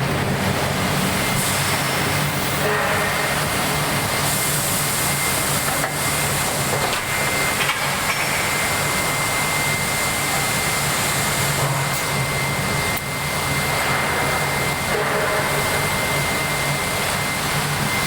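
Steady industrial machinery noise of a hot-forging press shop: a continuous rush with a low hum and a steady high-pitched whine, and a few faint knocks.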